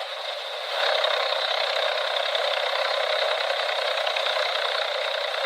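Drum wood chipper running, a steady mechanical whir and rattle that grows louder about a second in and then holds even.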